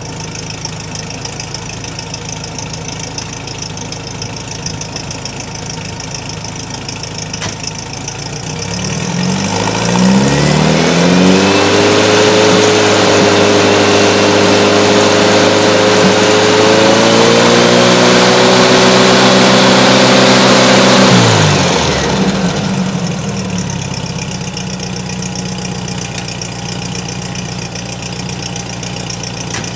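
VW Beetle's air-cooled flat-four engine through a Vintage Speed Sebring exhaust, idling, then revved up about 9 seconds in and held at about 3,000 RPM, stepped up to about 4,100 RPM and held, then let back down to idle about 22 seconds in.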